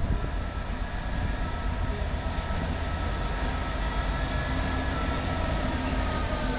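Class 66 diesel-electric locomotives, with EMD two-stroke V12 engines, pulling away under load with a freight train and passing close by: a steady deep engine rumble with a high, steady whine over it.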